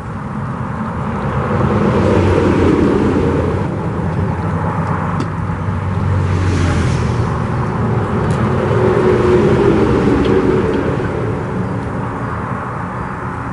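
Highway traffic passing, a loud rumble of vehicles that swells twice and fades, with a faint engine hum in the second swell.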